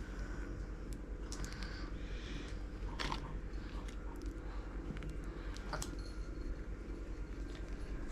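Small plastic clicks and crinkles from squeezing a resin bottle and handling the little mould, a few sharp ticks scattered over a steady low hum.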